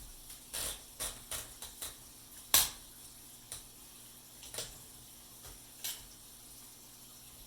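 1955 Olympia SM3 portable typewriter's mechanism clicking and clacking as it is worked: about nine separate metallic clicks at uneven intervals, the sharpest about two and a half seconds in.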